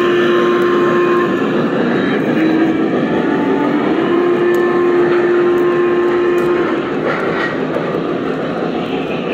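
O scale model freight train of Lionel hog cars rolling across a model bridge, a steady rumble and whir of wheels on the track with a steady hum underneath.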